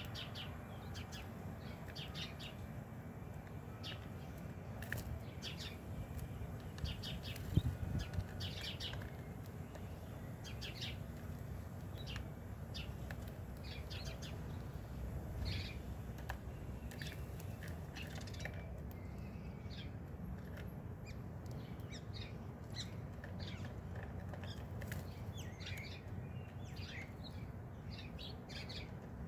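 Sparrows chirping in short, high notes scattered throughout, over a low steady rumble, with a single soft thump about seven or eight seconds in.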